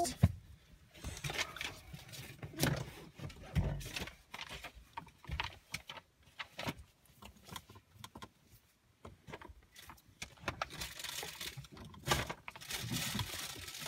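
Irregular small clinks, knocks and rattles of household items being handled and packed away. A steadier rustling hiss comes in near the end.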